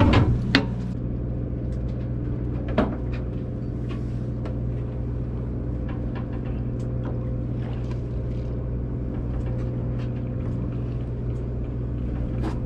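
A fishing boat's engine running steadily with a low, even drone, and a few light clicks and knocks over it, the sharpest about half a second in and another near three seconds.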